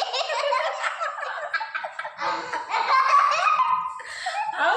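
Young children giggling and laughing, their high voices overlapping.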